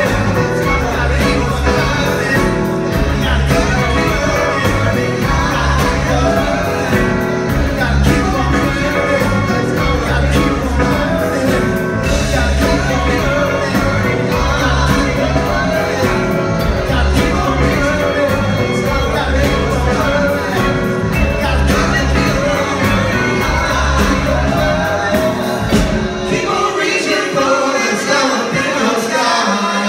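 Live band music with a group of backing singers singing together over a repeating bass line. The bass drops out about four seconds before the end, and shouting from the crowd begins.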